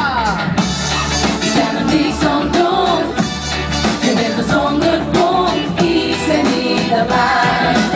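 Live song: a backing track with a steady beat and a voice singing over it.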